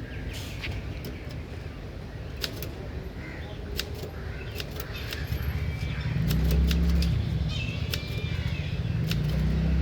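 Old manual typewriter keys striking in an irregular run of sharp clacks. From about halfway a motor vehicle's engine rumbles close by and becomes the loudest sound.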